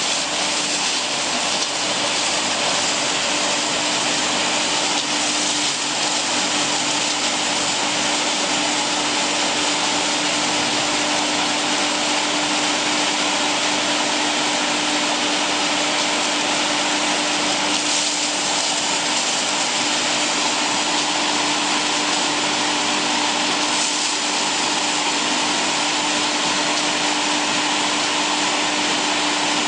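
Wood hammer mill and its blower fan running without a break: a steady hum over a dense, even rushing noise.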